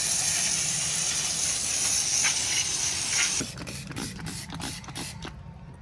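Hardtail mountain bike rolling: a rushing hiss that cuts off about three and a half seconds in, then the rear hub's freewheel clicking as the bike coasts.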